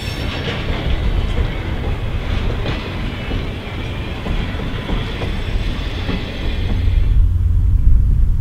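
Railroad passenger coaches rolling past on the track, the wheels clacking over the rails. About seven seconds in the sound cuts suddenly to a low rumble.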